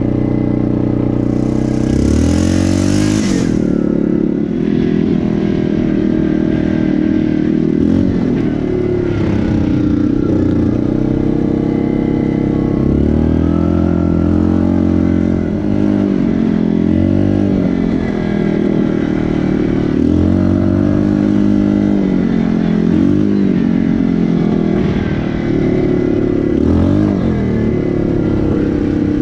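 Yamaha Grizzly ATV engine revving up and down repeatedly as it is ridden, with a short hissing rush about two seconds in.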